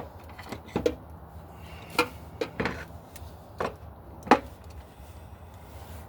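Tools and hardware being handled: several sharp knocks and taps, irregularly spaced, with the loudest one past the middle.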